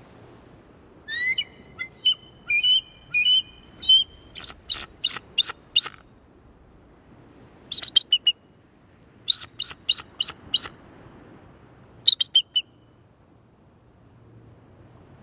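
An eagle calling: bouts of high, thin whistled notes run into quick piping series. The first and longest bout starts about a second in, followed by three shorter bouts.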